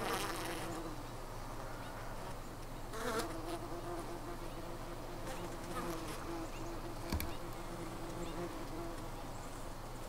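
Honey bees buzzing at a hive entrance: a steady hum of wingbeats that swells as bees fly close, near the start and again about three seconds in, with a short click about seven seconds in.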